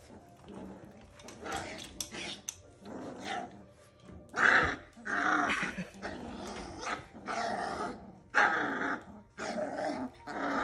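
Labradoodle puppies, about four and a half weeks old, growling as they play-fight, in a run of short calls that grow louder about four seconds in.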